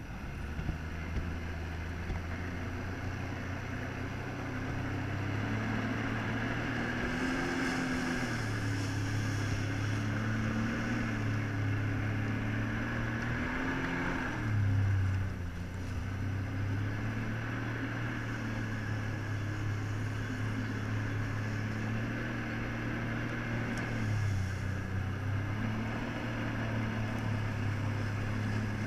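Jet ski engine running steadily as it drives a flyboard through its hose. Its pitch rises and falls a few times with the throttle: up about a quarter of the way in, dipping near the middle and again near the end.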